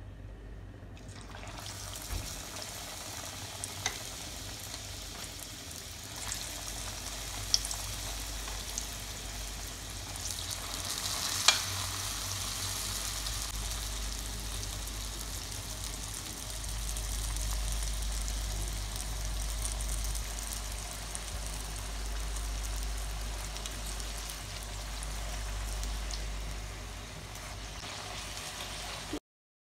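Chicken vegetable rolls deep-frying in hot oil: a steady hissing sizzle that starts about a second in, with a few sharp pops, the loudest about eleven seconds in. It cuts off suddenly near the end.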